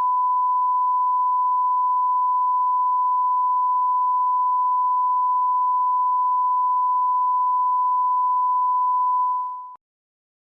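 Steady single-pitch electronic tone of the kind used in broadcast alert and test signals, held for about nine seconds, then fading quickly and cutting off shortly before the end.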